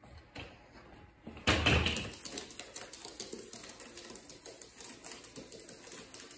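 A bearded dragon's claws clicking and scratching lightly on the paper and plastic of a ring binder as it crawls, in small irregular ticks. A brief rustle comes about a second and a half in and is the loudest sound.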